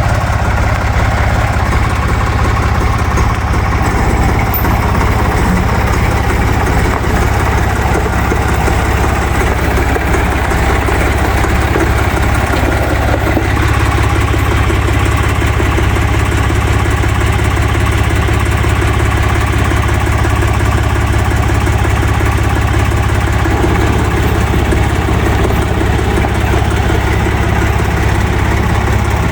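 Ditch Witch trencher-backhoe's air-cooled three-cylinder Deutz diesel running steadily, with no marked change in engine speed.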